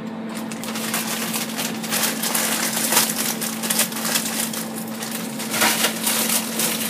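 Plastic bag of frozen mixed vegetables crinkling as the frozen pieces are shaken out into a rice cooker's steamer basket: dense crackling and rustling throughout.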